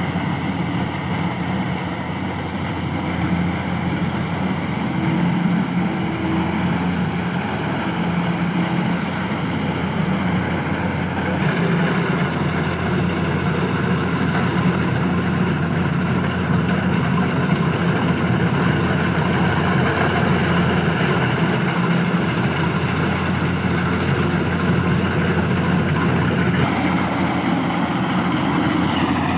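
Kubota DC70 combine harvester's diesel engine running steadily, with the sound filling out a little after about a dozen seconds.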